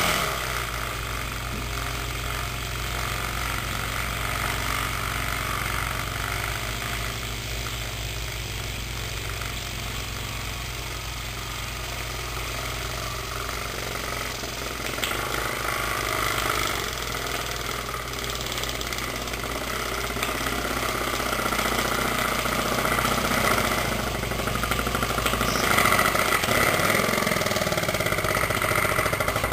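Small steam engine running on the combustion gas of a burning, slow-burning black-powder fuel log: a steady hissing run that comes on suddenly and grows louder over the last third, the engine reaching about 600 rpm at its peak. Its pressure wavers, which the builders put down to gunk from the powder building up back pressure in the engine.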